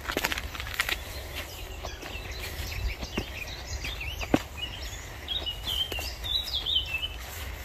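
Footsteps through long grass with wind rumbling on the microphone, while a small bird sings from the hedge in a busy run of chirps, thickest in the second half.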